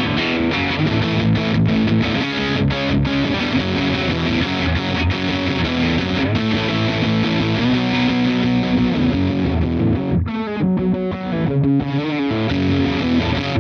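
Electric guitar played through The Crook V4 overdrive pedal, giving a distorted, driven tone. About ten seconds in the sound turns darker as the pedal's High-Tail low-pass control rolls off the high end.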